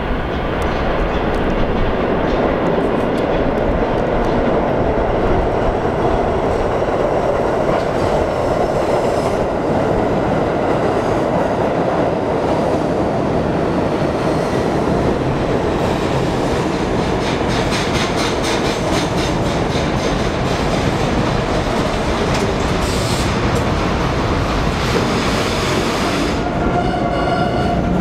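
A Budd R32 subway train pulling into an underground station and slowing to a stop: a loud steady rumble that swells in the first second, with rapid, regular clickety-clack of the wheels as the cars roll past, and a brief high squeal near the end as it halts.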